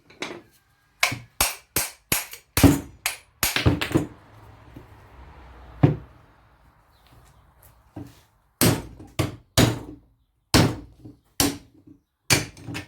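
About a dozen sharp, irregular knocks on an old washing-machine motor as its rotor is worked out of the housing, with a short scraping rattle about four seconds in.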